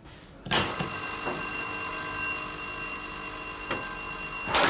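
An electric alarm bell starts ringing about half a second in and rings steadily. Near the end a steel fire door slams shut with one loud bang.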